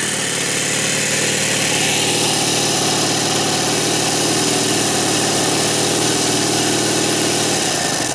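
ASP 5cc four-stroke glow engine of an RC model plane running steadily with its propeller spinning close by, then stopping abruptly right at the end.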